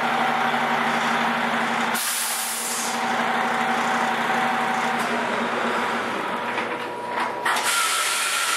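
Coach bus engine running, with a short burst of air-brake hiss about two seconds in, after which the engine hum drops away.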